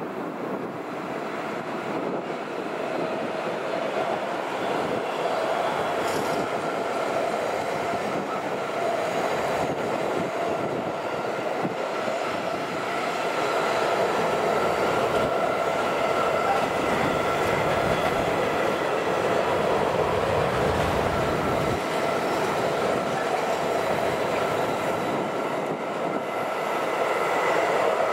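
Intermodal freight train of wagons loaded with semi-trailers rolling past: a steady rumble of steel wheels on rail with a thin steady whine over it, growing louder over the first half as the wagons come closer, then holding.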